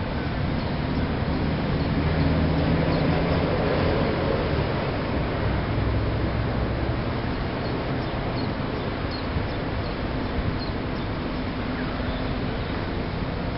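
Steady low mechanical rumble with a hum that swells for a few seconds, with a few faint high chirps over it in the second half.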